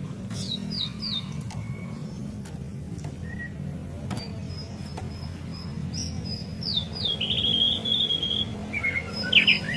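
White-rumped shama singing: clear whistled notes and quick downward slurs, a held high note partway through, then a rapid run of notes and a louder flurry near the end, over a steady low hum.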